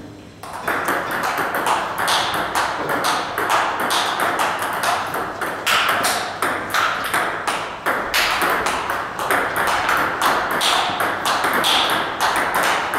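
Table tennis rally: the celluloid ball clicking off the rubber-faced paddles and bouncing on the table, a steady run of sharp ticks about three a second that starts about half a second in.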